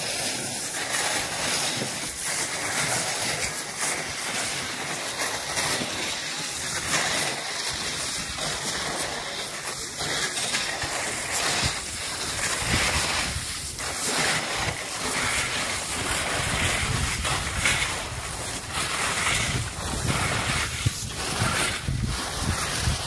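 Wind blowing across the microphone: a steady rushing noise with uneven low gusts.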